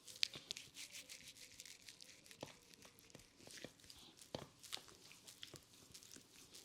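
Fingers rubbing and scratching through hair on the scalp during a head massage: faint, irregular crackling, with a few sharper clicks now and then.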